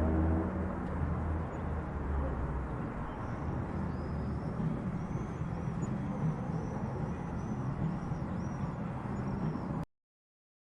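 Street traffic ambience: a vehicle's low engine rumble fading over the first few seconds over steady road noise, with repeated high chirps from about three seconds in. The sound cuts off abruptly near the end.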